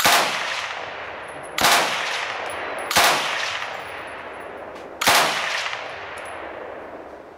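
Finnish KvKK 62 light machine gun, chambered in 7.62x39mm, firing four times from the bipod, about one and a half to two seconds apart. Each firing is followed by a long echo that dies away.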